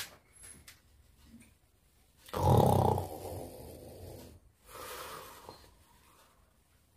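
A man snoring: one loud snore about two seconds in that fades out over about two seconds, then a second, softer snore about a second later.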